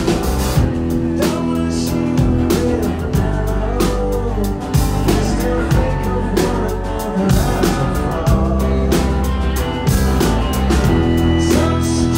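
Rock band playing live and loud: electric bass, guitars and a drum kit keeping a steady beat.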